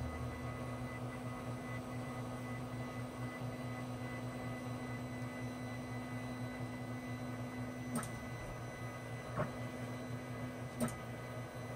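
Monoprice Maker Ultimate 3D printer running with a steady hum as its build plate moves. Three light clicks about a second and a half apart come in the last few seconds.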